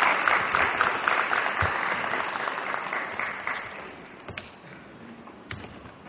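Audience applauding, the clapping dying away about four seconds in, with a few single sharp knocks after it.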